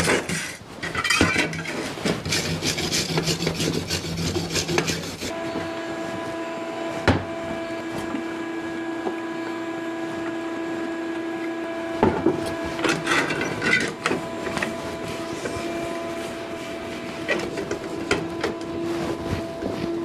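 Hand wire brush scrubbed back and forth over a welded steel bracket in quick strokes for about the first five seconds. After that a steady hum carries on, with a few clicks and a short spell of rag rubbing part way through.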